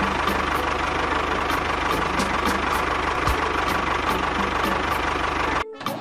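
Small engine running steadily at idle with a fast, even beat. It cuts out briefly near the end, then starts again.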